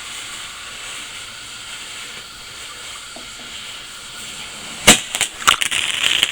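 Lit TNT firework fountains hissing steadily. About five seconds in there is one sharp, loud crack, followed by fast, dense crackling as the fountains take.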